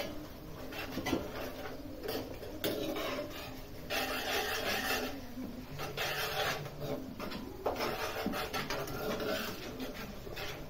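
A metal spoon scraping and stirring in a frying pan, tossing chicken lollipop pieces in a thick red masala, in irregular rasping strokes.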